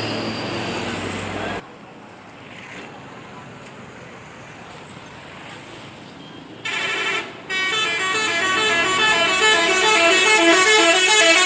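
Indonesian 'telolet' multi-tone bus air horn playing a quick stepping melody, which cuts off suddenly about a second and a half in. After a quieter stretch of several seconds the horn sounds briefly, then plays a long, repeating tune through the end.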